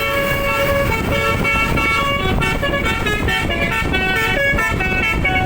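Bus telolet horn, a Basuri multi-trumpet air horn, playing a fast melody of short chord-like notes that change pitch every fraction of a second, over a low rumble.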